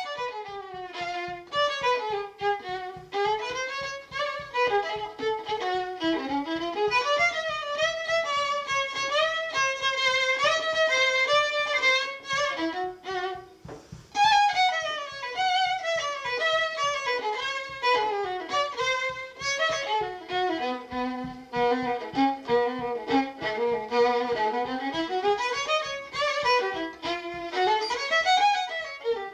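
Background music: a violin playing a flowing melody with vibrato over a steady, quick low pulse of accompaniment. The melody breaks off briefly about halfway, then resumes.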